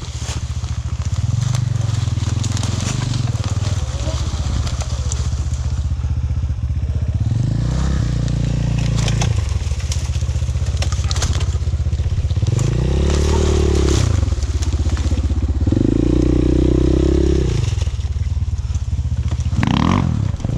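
Off-road vehicle's engine running under load, revving up and easing off three times in the second half, with a short sharp rev near the end. Scattered clicks and knocks run through it.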